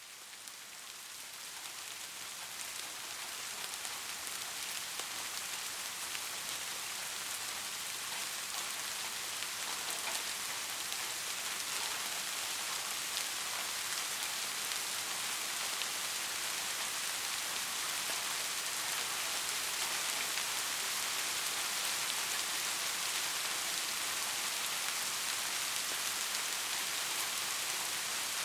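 Steady rain falling on a surface: a dense hiss of drops with fine ticks in it, swelling up over the first few seconds and then holding even.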